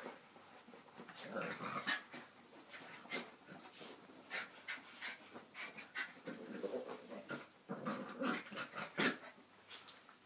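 Two small terrier-type dogs play-fighting: irregular short growls and panting amid scuffling, in uneven bursts.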